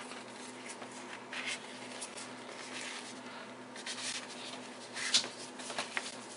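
Handling noise from a small plastic camera and its cable being fitted into a mesh fabric armband case: soft rustling with scattered light clicks and taps, the sharpest about five seconds in. A steady low hum runs underneath.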